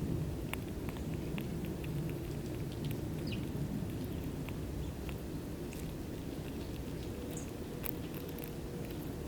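Steady low rumble of outdoor background noise with scattered light ticks and patters, and a faint short chirp about three seconds in.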